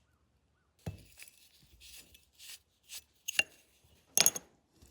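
Small metal tools clicking, tapping and scraping against the steel parts of a single-shot .410 shotgun's action during disassembly. It is an irregular run of short knocks and scrapes, with the sharpest about three and a half seconds in and near the end.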